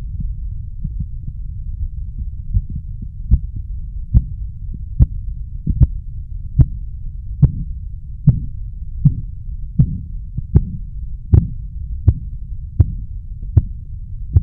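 Korotkoff sounds heard through a stethoscope over the arm artery during blood-pressure measurement. Sharp, regular tapping appears about three seconds in and then beats evenly, a little more than once a second, over a steady low rumble. The onset of the taps marks the systolic pressure as the cuff deflates.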